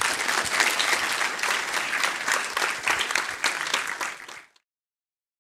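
Audience applauding, a dense patter of many hands clapping, which cuts off abruptly about four and a half seconds in.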